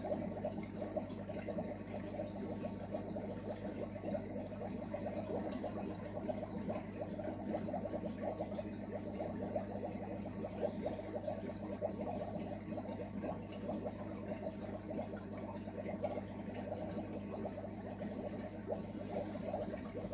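Small aquarium sponge filter running: continuous bubbling and trickling of water, over a steady low hum.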